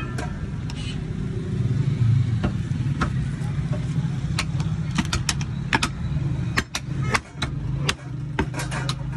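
Butcher's knife and cleaver knocking sharply and irregularly against beef and a wooden chopping stump as the meat is cut from the bone, with several knocks in quick succession in the second half. A steady low engine hum runs underneath.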